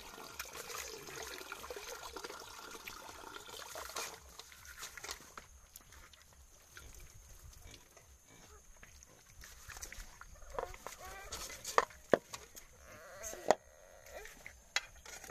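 Wet squelching and scrubbing as land snail meat is rubbed by hand in a metal basin, with a few sharp clicks against the basin in the second half. An animal calls in the background over the last few seconds.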